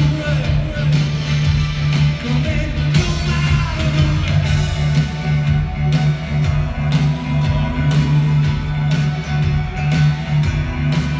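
Live rock band playing in a concert hall, heard from the audience: electric guitars, drums and keyboards over a steady, pulsing low bass note, with some singing.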